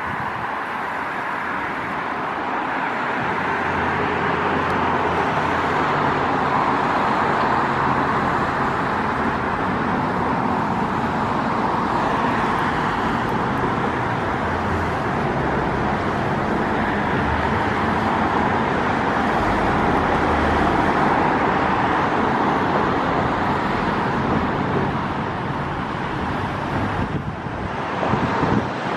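Road traffic noise, a steady wash of passing vehicles with a low engine rumble, building over the first few seconds and easing off near the end.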